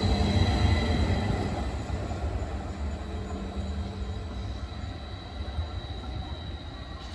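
Eurobahn Stadler FLIRT electric multiple unit running on the rails as it moves away, its rumble fading steadily, with a faint steady high whine over it.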